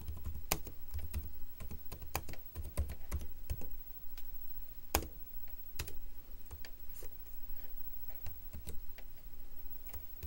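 Typing on an HP laptop keyboard: irregular key clicks in quick runs with short pauses, a few keystrokes louder than the rest.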